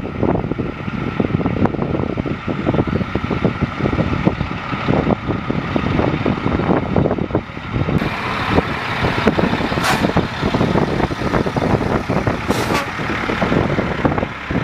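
Medium Tactical Vehicle Replacement (MTVR) military truck's diesel engine running as the truck drives along the tarmac and rolls past. Two short hisses come in the second half.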